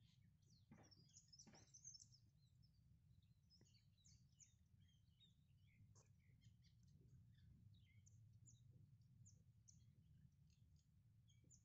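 Faint, scattered chirping of small birds over a low, steady background rumble, with a couple of brief faint knocks in the first two seconds.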